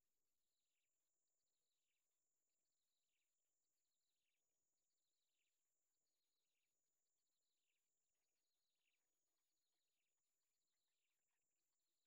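Near silence: only a very faint chirp that falls in pitch, repeated about once a second, over a steady faint high hiss.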